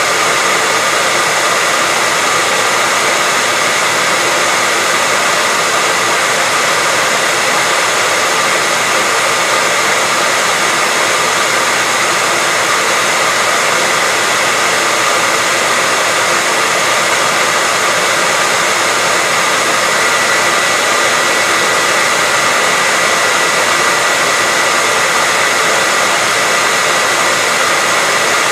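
Hair dryer running steadily: a continuous rush of air with a faint steady whine over it, unchanging throughout.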